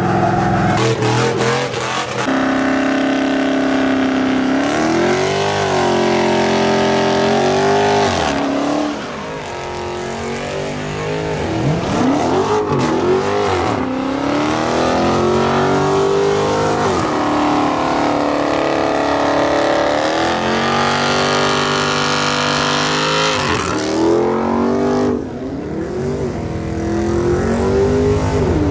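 Engines of pickup trucks and cars revving hard again and again, pitch climbing and dropping with each rev, during burnouts. The level dips briefly about 8 s in and again near the end, where the clips change.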